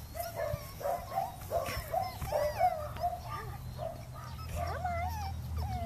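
Five-week-old Norwegian Buhund puppy whining and yipping: a string of short, high, wavering whines repeated every fraction of a second.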